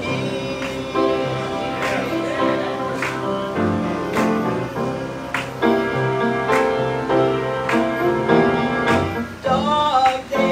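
Upright piano playing slow, sustained chords, with a singing voice rising over it near the end.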